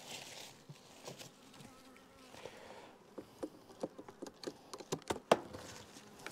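Honeybees buzzing around a hive while its strap is unfastened, with a run of light clicks and knocks from handling the strap, the sharpest about five seconds in.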